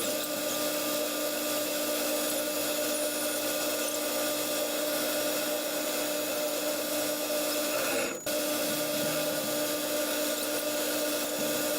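Clausing lathe running while a boring bar takes a light finishing cut inside a bore: a steady hum with a hiss from the cut, dipping briefly about eight seconds in.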